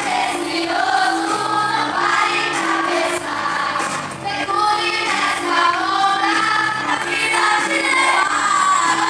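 A choir of young voices singing a melody together over steady instrumental accompaniment.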